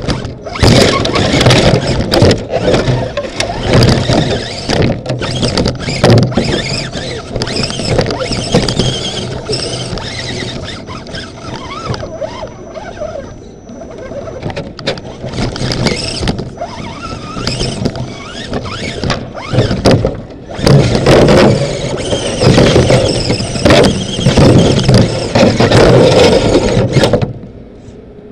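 RC rock crawler's electric motor and gear drivetrain whining as it drives, with frequent knocks and rattles, heard from inside the body shell. It stops about a second before the end.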